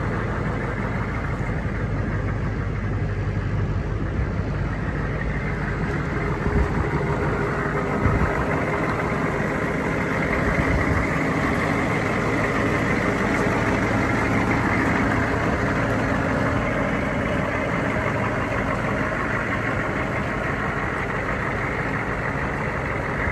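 M1167 Humvee's turbo-diesel V8 idling steadily, with a couple of brief knocks about six and eight seconds in.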